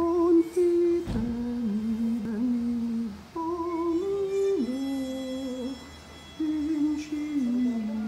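A person humming a slow melody in long held notes that step up and down, with short breaks about three and six seconds in. A single thump sounds about a second in.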